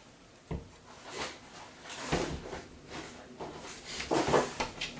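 Light handling clicks, knocks and rustles from a cable tie being fitted around the wire on the small lamp assembly, with a sharp click about half a second in and a cluster of knocks near the end.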